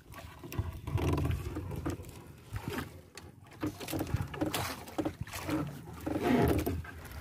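A fishing net being handled on a boat: irregular rustling and scraping of the nylon mesh with scattered knocks, and a low rumble about a second in.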